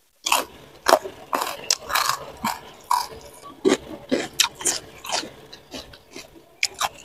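A person chewing a mouthful of food close to the microphone: irregular wet crunches and mouth clicks, several a second.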